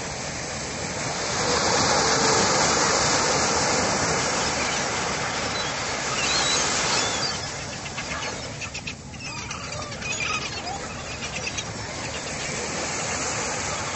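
Ocean surf washing onto a sandy beach, swelling louder for the first half, with a few short high seagull calls around the middle.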